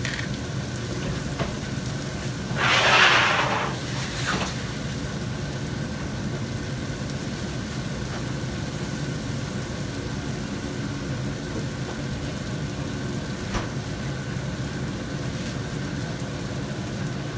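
Chopped pork sisig with an egg on top sizzling steadily on a hot cast-iron sizzling plate, over a low steady hum. A louder hiss swells up briefly about three seconds in.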